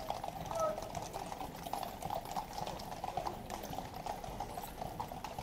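Hooves of a column of cavalry horses striking the road as they ride past: a run of irregular, overlapping clip-clops.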